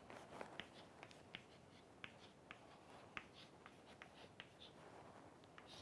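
Chalk tapping and scratching faintly on a chalkboard as words are written by hand: a scatter of small, irregular ticks.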